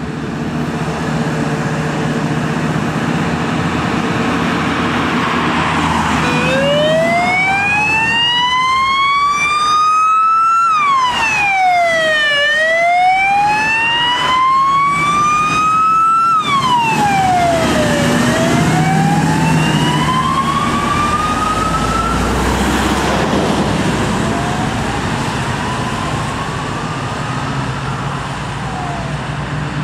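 Scania fire tanker on an emergency run, its diesel engine and tyres passing close, with the siren coming on about six seconds in. The siren gives a slow wail, each long rise followed by a quicker fall, repeated three times, and grows fainter near the end as the truck drives off.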